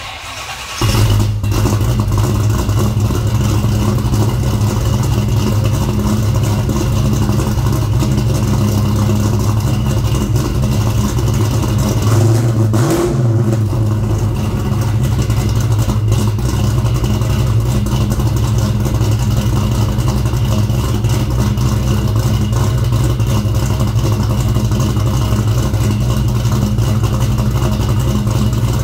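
Chevrolet Monte Carlo's engine fitted with BlackWidow Venom 300 mufflers, being started for the first time. It is cranked, catches about a second in, and then idles steadily through the exhaust, with one brief rise and fall in pitch about halfway through.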